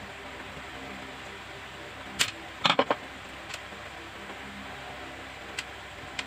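Several sharp clicks and clatters over a steady hiss: one a little over two seconds in, then a quick run of three or four, with a few fainter ticks later.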